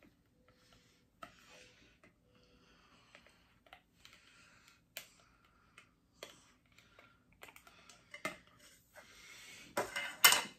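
Faint, scattered clicks, taps and rustles of statue parts being handled as the figure is pushed and worked at its pegs, which will not seat in the base. A louder rustle near the end.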